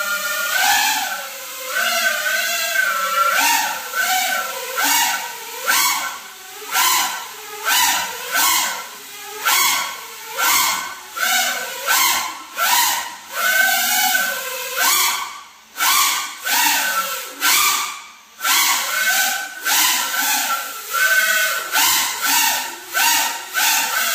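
Small FPV quadcopter's brushless motors and propellers whining in flight, the pitch rising and falling about once a second as the throttle is worked, and dropping off briefly twice in the middle.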